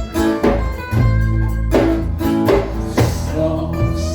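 A band playing an instrumental passage: guitar chords, changing about once a second, over steady low bass notes.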